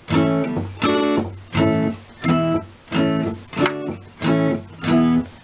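Steel-string acoustic guitar strummed with about eight strums, roughly two-thirds of a second apart, each left to ring. The chord changes between strums, as when practising changes between basic open chords.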